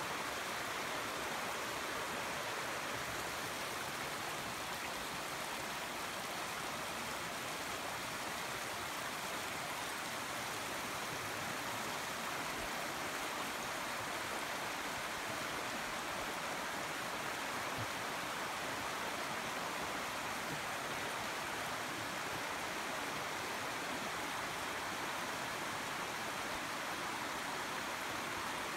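Steady rush of running water, an even hiss with no breaks or distinct events.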